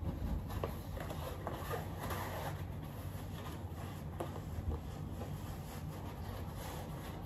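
Fabric rustling and rubbing as the prop's arm is worked into a jacket sleeve, with a few light clicks of handling.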